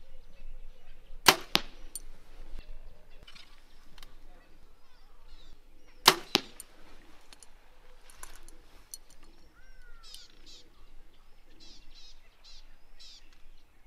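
Compound bow shot twice, about five seconds apart. Each shot is the sharp snap of the string on release, followed about a third of a second later by the arrow striking the target.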